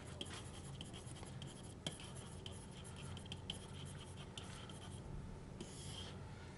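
Faint scratching and light tapping of a stylus writing by hand on a pen tablet, with one longer stroke near the end as the heading is underlined.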